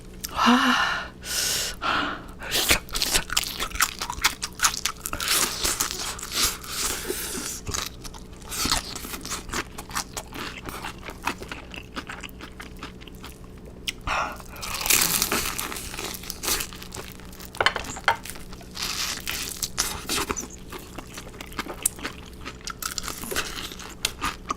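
Crispy fried chicken being bitten and chewed close to the microphone: irregular crunches and crackles, with several louder bites scattered through.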